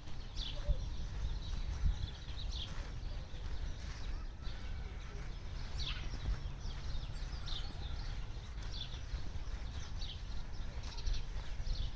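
Small birds chirping, with short high calls scattered through, over a steady low rumble.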